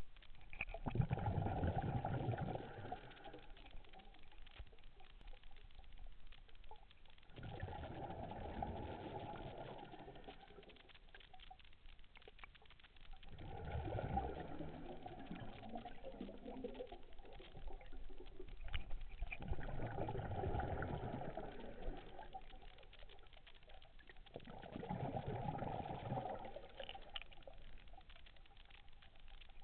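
Scuba diver's exhaled breath bubbling out of the regulator, heard underwater: five bubbling exhalations, each lasting two to three seconds and coming about every six seconds, with quieter inhalations between.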